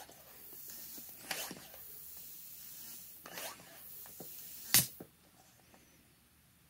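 Air hissing out past the inlet needle and seat of a Mikuni carburetor during a pop-off pressure test, with a few brief handling noises. A sharp click near the end is the loudest sound, and the hiss stops right after it.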